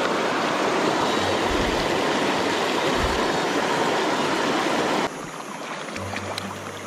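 Rushing water of a rocky mountain stream tumbling over small rapids, a steady loud hiss with two dull low thuds. About five seconds in it cuts abruptly to a quieter, gentler flow of the stream.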